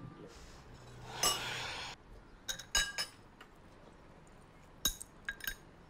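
Metal spoons clinking against ceramic bowls and dishes while eating: a short scrape about a second in, then a few light, ringing clinks, a cluster midway and another near the end.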